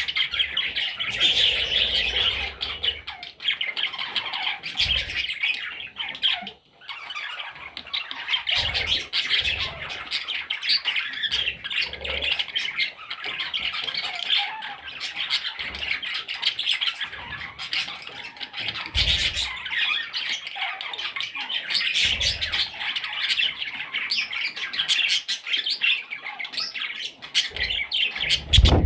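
A group of baby budgerigars chattering and squawking continuously in high, scratchy calls, with a brief lull about six seconds in and a few soft low thumps.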